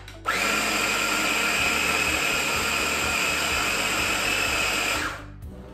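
KitchenAid 3.5-cup electric food chopper running steadily for about five seconds, its motor whine over the whirr of the blades chopping parsley, cashews and parmesan into pesto. It starts just after the beginning and cuts off about five seconds in. The small bowl is loaded close to its limit.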